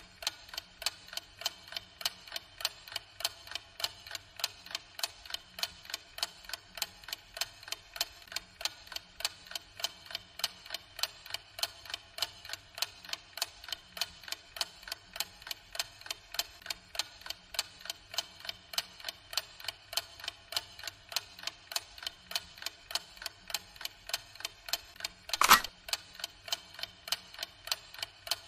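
Clock ticking steadily and quickly, a little over two ticks a second. About three seconds before the end there is one louder sharp knock.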